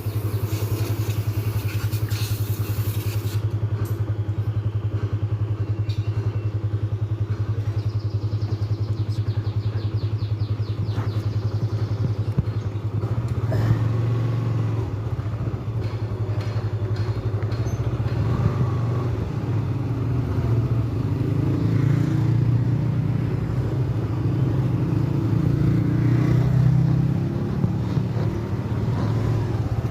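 Motorcycle engine running while riding, with a steady low hum that works harder and climbs a little in pitch from about halfway through. Occasional short knocks and clatter sound over it.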